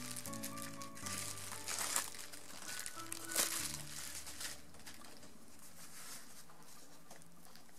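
Bubble wrap and thin plastic wrapping crinkling as hands pull it open, in sharp crackles through the first half that die down later, over soft background music.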